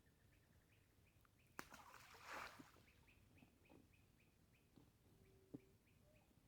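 Faint chirping repeated about three times a second, with a sharp click about a second and a half in followed by a brief rustle, and another sharp click near the end.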